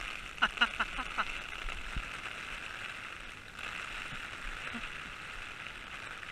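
Steady hiss of rain falling, with a few short vocal sounds about half a second to a second in.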